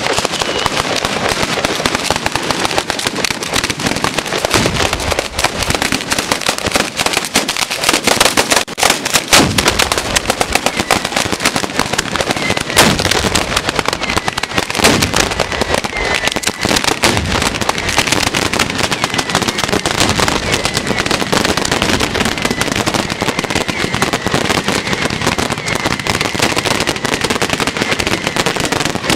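A batteria alla bolognese, a long chain of firecrackers strung on wires between poles, going off in a dense, unbroken crackle of rapid bangs, with a few heavier bangs about 9 and 13 seconds in.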